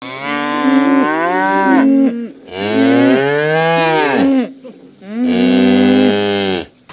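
Cows mooing: three long, loud moos one after another, with short pauses between them.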